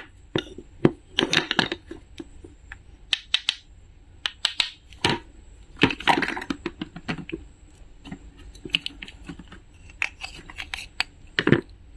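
Small objects handled up close: an irregular run of sharp clicks and taps, with a few short crinkling, tearing rustles.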